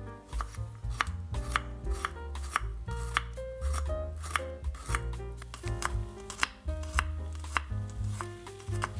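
Kitchen knife chopping garlic on a wooden cutting board: a steady run of sharp strikes, about two a second, with background music underneath.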